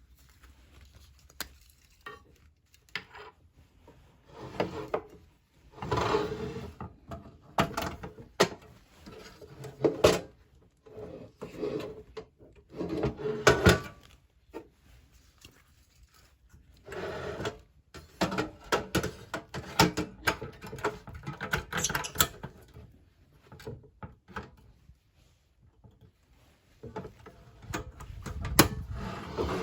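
Objects being handled at close range: repeated spells of rubbing and rustling broken by sharp knocks and clatters, with a hard knock near the end.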